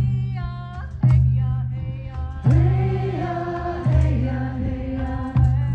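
Drum circle music: a deep drum struck about once every second and a half, each stroke ringing on, under a group of voices singing.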